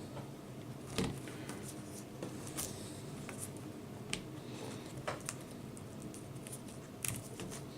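Hands working on a laptop's screen assembly: scattered light clicks, taps and rustles of small parts and tape being handled, over a faint steady hum.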